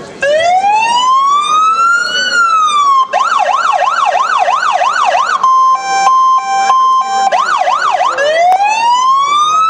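Electronic emergency siren cycling through its tones: a slow rising and falling wail, then a fast yelp at about three cycles a second, then a two-tone hi-lo alternating between two pitches, a brief yelp, and the wail rising again near the end.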